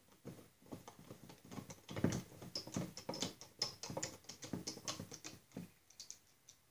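Hand screwdriver driving screws into a Snapper riding mower's chain case cover: a run of small, irregular clicks, several a second, that stops about a second before the end.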